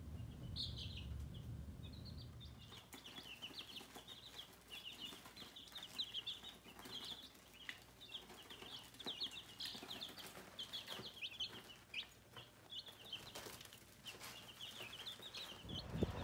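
A brood of baby chicken chicks peeping, many short high chirps overlapping one another.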